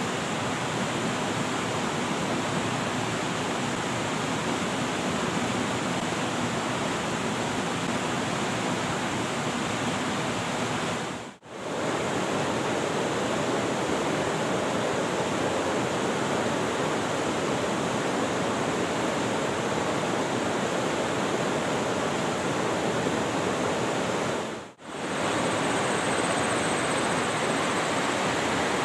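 A mountain river rushing over rocks in rapids, a steady, even rush of water that cuts out briefly twice.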